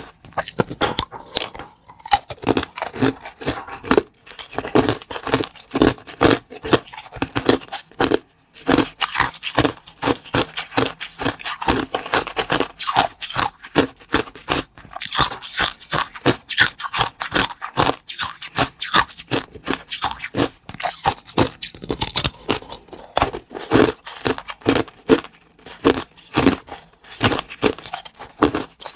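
Close-miked eating sounds of small baked cakes: a quick, continuous run of crunching and scraping with a few brief pauses.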